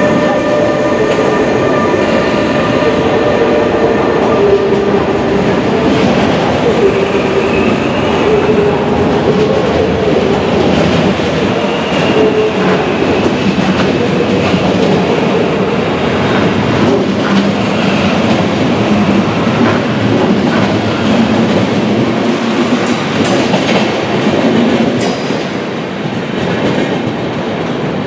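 NS class 186 TRAXX electric locomotive and its ICRm intercity coaches rolling past. A steady electrical whine from the locomotive fades over the first several seconds, then the coaches rumble and clatter over the rails with brief wheel squeals and scattered clicks, growing slightly quieter near the end as the train draws away.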